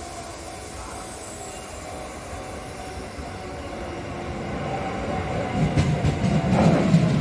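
Shin-Keisei 8800-series electric commuter train (set 8804) approaching and pulling into the station. Its rumble grows louder as it nears, and its wheels click over the rail joints for the last second or two.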